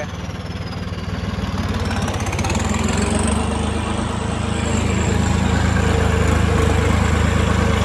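Heavy diesel farm machinery engine running steadily, with a thin high whine that dips and then climbs in pitch about three seconds in; the engine grows slightly louder toward the end.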